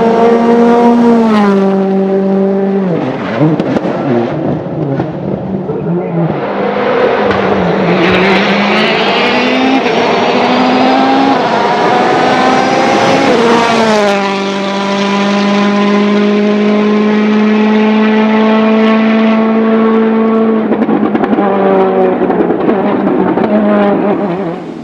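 Rally car engines run hard at high revs, their pitch stepping up and down through gear changes and lifts. A rush of noise builds under the engines midway, then a sharp drop in revs is followed by a long steady high-revving stretch.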